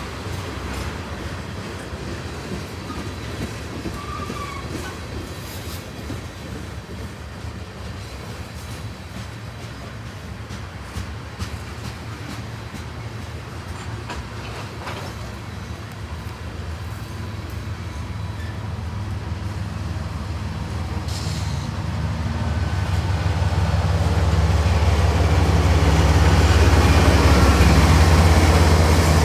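CSX freight train rolling on the rails, with wheel clatter over a steady rumble; a low engine drone builds and grows much louder over the last several seconds.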